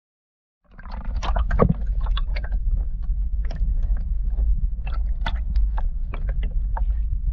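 Wind buffeting the microphone in a steady low rumble, over many sharp, irregular clicks and knocks. It all starts abruptly just under a second in.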